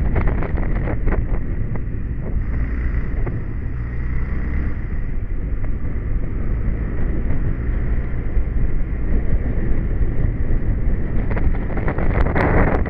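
Royal Enfield single-cylinder motorcycle engine running steadily under load on a mountain climb, heard from the bike itself, with wind noise on the microphone. A short louder burst of noise comes near the end.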